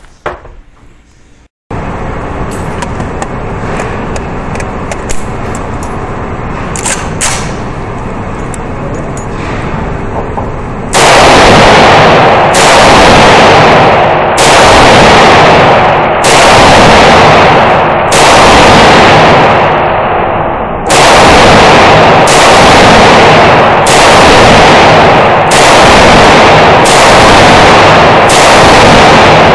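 VZ2008 rifle, a US-built copy of the Czech vz. 58 in 7.62×39 mm, fired at a slow, steady pace: about eleven shots 1.5 to 2 seconds apart, starting about a third of the way in, with a slightly longer pause midway. Each shot is very loud and is followed by a long echo in the indoor range. Before the shooting there is a steady hiss of background noise.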